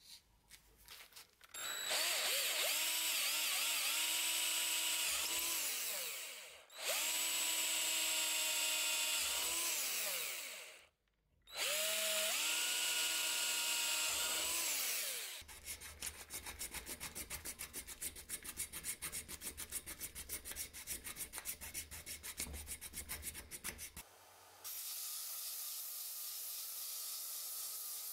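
Electric drill boring holes through wooden knife-handle scales in three runs, each whine rising as the motor spins up and falling away as it stops. Then a fast, even rattle for about eight seconds, and near the end the steady hiss of the handle wood being sanded on a small sanding machine.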